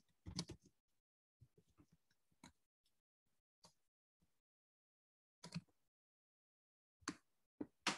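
Near silence broken by faint, scattered computer keyboard keystrokes, about ten short clicks spread unevenly with long gaps between them, as code is typed.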